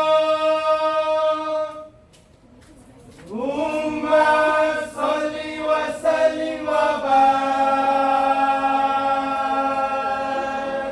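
Voices singing a slow chant in long held notes. One note fades out about two seconds in; after a short pause a new phrase slides up and holds, changing pitch a few times.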